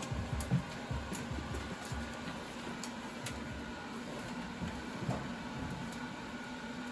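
Wood fire burning in a stove's firebox, with scattered sharp crackles and pops over a steady low hum.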